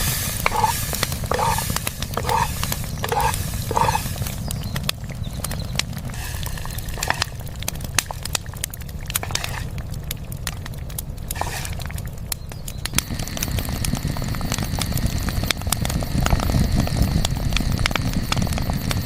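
Scattered sharp clicks and crackles over a steady low rumble, with a short run of repeated high chirps in the first few seconds and a thin steady high tone that sets in about two-thirds of the way through.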